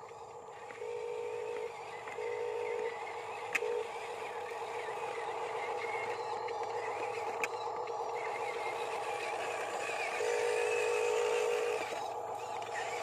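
Small electric motors of a radio-controlled Huina cement mixer truck whining as it drives, a steady hum that swells in spurts as the throttle is worked, the longest swell near the end. There are a couple of light clicks.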